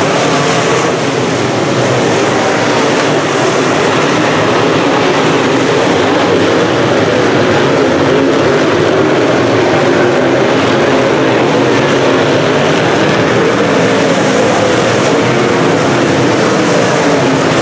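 A field of UMP dirt modified race cars lapping the oval together, their V8 engines a loud, steady drone.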